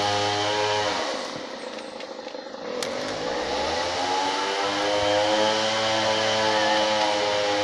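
A small engine running steadily. About a second in, it eases off, then picks up speed again around three seconds in and settles back to a steady run.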